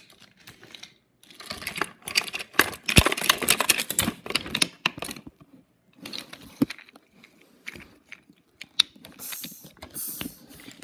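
Wooden toy trains clattering and knocking on wooden track as they are handled, with a long dense run of clicks and knocks early on, scattered clicks after, and a brief rustle near the end.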